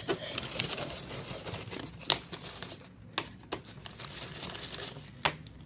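Homemade borax slime being beaten hard with a small spoon in a plate: a continuous wet, sticky scraping and squelching, with a few sharp clicks of the spoon against the plate.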